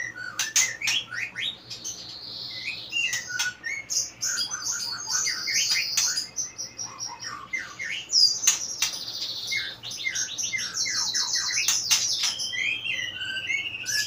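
White-rumped shama singing a long, varied song without pause: quick whistled notes, many sliding downward, mixed with high chattering trills and sharp clicks.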